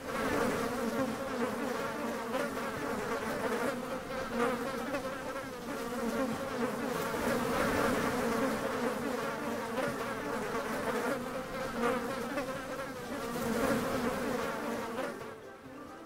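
A swarm of insects buzzing, a dense steady drone that starts suddenly and fades out near the end.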